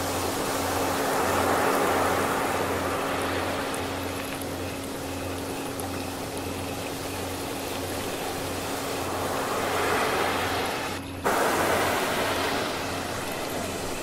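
Ocean surf washing in and swelling, over a steady low singing-bowl tone and a low throb pulsing about twice a second. The wash breaks off for an instant about eleven seconds in and comes straight back.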